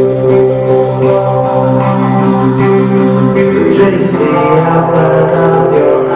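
A live band playing on stage: strummed guitars over a held low note, changing chord a little past halfway through.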